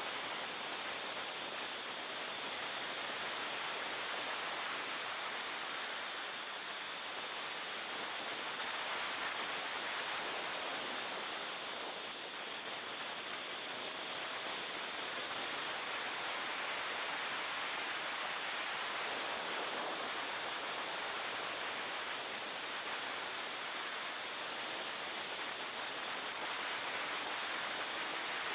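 Steady rushing noise of a BMW E36 M3 race car at speed, mostly wind and road noise over the onboard camera's microphone. The engine is heard only faintly, its pitch sliding a little a couple of times.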